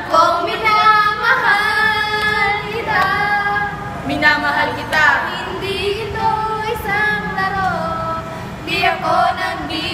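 Young women singing together, with held notes and slides between them.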